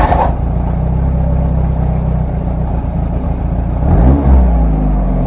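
Car engine idling steadily, then revved once about four seconds in and dropping back.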